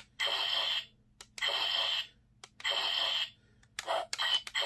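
Bandai Legacy Dragon Dagger toy playing its electronic strike sound effects through its small built-in speaker as the flute keys are pressed. There are three separate blasts of about half a second each, then a quick run of short, cut-off ones as the keys are pressed fast. The sound is likened to a piercing killing strike.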